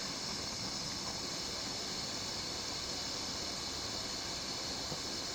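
Steady hiss of a gas torch flame heating heavy-gauge wire for soldering.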